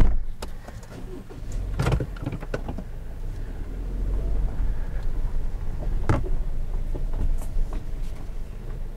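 Subaru Forester Sport with its 2.5-litre boxer engine, running as the car moves off and drives on a dirt road. A steady low rumble of engine and tyres, with a sharp click about two seconds in and another about six seconds in.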